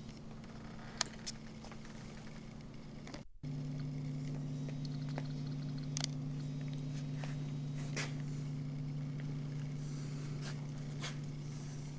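A steady low hum with faint scattered clicks and ticks. The hum cuts out briefly about three seconds in and comes back louder.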